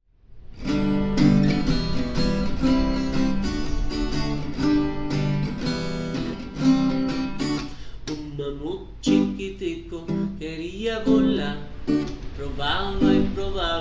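Acoustic guitar strummed in a steady, rhythmic chord pattern. About eight seconds in, a man's voice comes in over the guitar.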